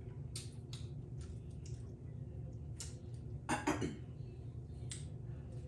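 Close-up eating sounds from a seafood boil: short wet clicks, smacks and chewing from the mouth and the crab shells, the loudest a little past halfway through. A steady low hum runs underneath.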